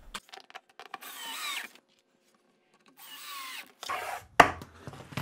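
Cordless drill driving screws into a half-inch plywood floor: two short runs of about a second each, one about a second in and one near three seconds in, the motor's pitch falling during each. Clicks and knocks of handling come between and after, with one sharp knock near the end.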